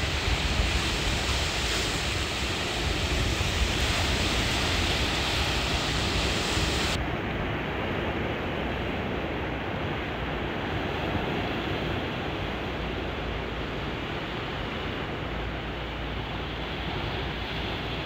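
Sea surf breaking and washing over a rocky shore, a continuous rushing hiss. About seven seconds in, the sound abruptly turns duller as its higher hiss drops away.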